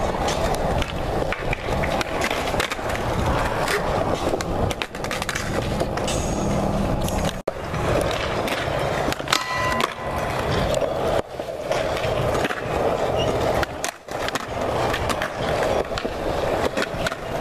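Skateboard wheels rolling steadily across a skatepark, with repeated sharp clacks of the board hitting the ground. Twice the rolling cuts out for a moment, and a brief high-pitched tone sounds about nine and a half seconds in.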